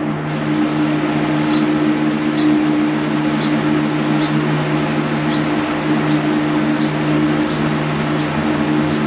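A steady mechanical hum with a low tone, and a short high chirp that repeats about once every 0.8 seconds.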